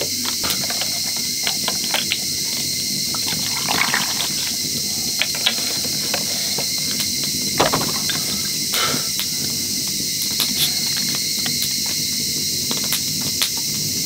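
Whisky poured from a large bottle over ice into a glass, with scattered small clicks and clinks, over a steady high insect chorus.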